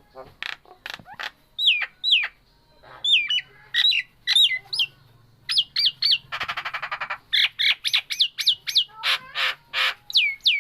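Nias hill myna calling non-stop: loud downward-sliding whistles mixed with harsh squawks, and a rapid rattling burst a little past the middle.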